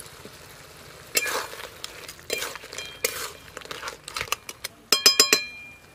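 A flat spatula scraping and stirring thick crab curry in a metal pan, a few short scrapes followed by a run of sharp metallic clinks that ring briefly about five seconds in.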